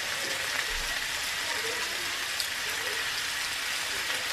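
Diced chicken and chopped onion sizzling in hot oil in a frying pan: a steady crackling hiss.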